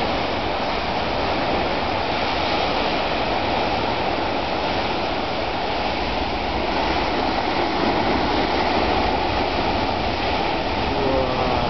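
Rough surf breaking against rocks at the foot of a sea cliff: a steady rush of crashing waves with no let-up.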